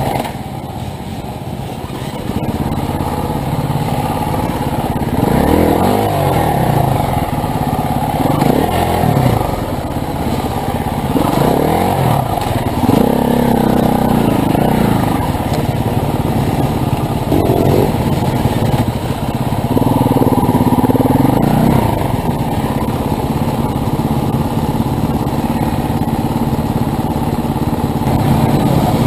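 Motorcycle engines running, their pitch rising and falling several times through the middle of the stretch.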